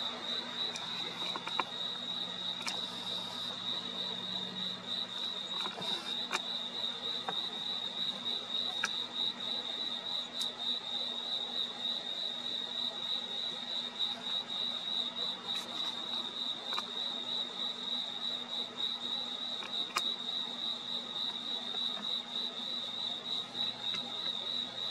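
Crickets chirping at night: one steady, high, rapidly pulsing trill that never breaks, with a few faint clicks scattered through it.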